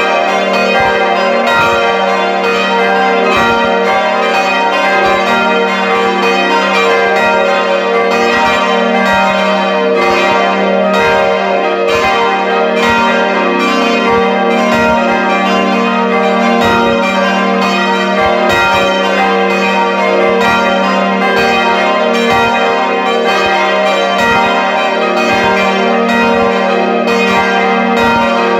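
Full peal of five swinging bronze church bells heard from inside the belfry, their strikes overlapping in an unbroken, steady ringing. The bells are four Schilling bells cast in 1962 (strike tones g', b', c'', d'') and one bell cast in 1772 (e-flat'').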